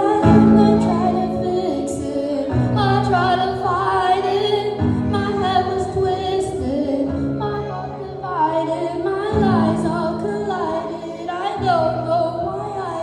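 Pop ballad music: sustained chords changing about every two seconds, with a female voice singing a wavering melody over them.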